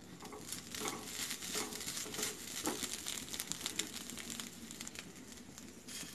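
Silicone spatula stirring and spreading freshly grated coconut in a kadai over a gas flame: an irregular soft scraping and rustling against the pan, easing off near the end.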